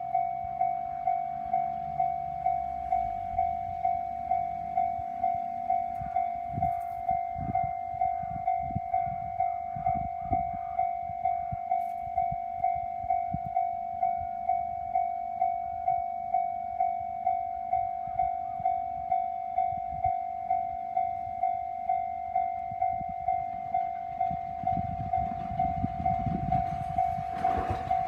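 Railway level-crossing warning bell ringing evenly about twice a second, while a train passes with a low rumble and clacks over the rail joints; the rumble swells near the end.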